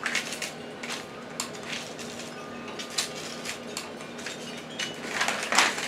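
Light clicks and knocks of objects being handled and fumbled, with a sharper click about halfway through and a louder rustling clatter near the end.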